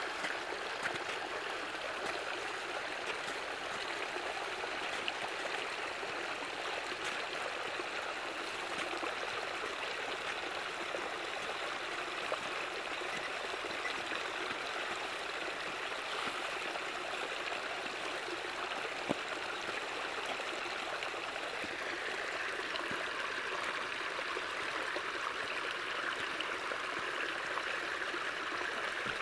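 Snowmelt water flowing in a steady, even rush.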